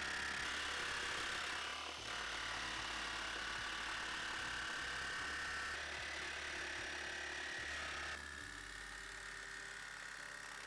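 Jigsaw cutting through a metal door panel, a steady motor whine with a rasping blade, fairly faint. Its sound changes abruptly about two seconds in and again about eight seconds in.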